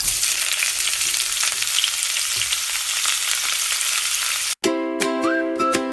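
A steady crackling, sizzling hiss that cuts off abruptly about four and a half seconds in. Light plucked-string background music, ukulele-like, starts right after.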